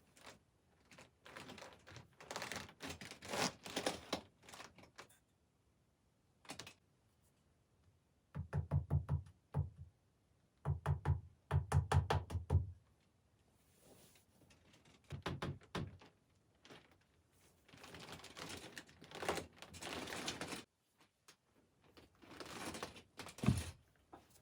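Several bursts of rapid knocking and clicking, each lasting a second or two with pauses between them. Two runs of heavier, deeper thuds come around the middle.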